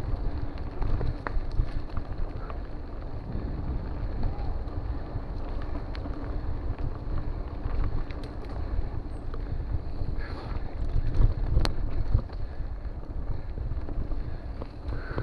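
Wind buffeting the microphone over mountain bike tyres rumbling on a dirt track, with scattered clicks and knocks from the bike.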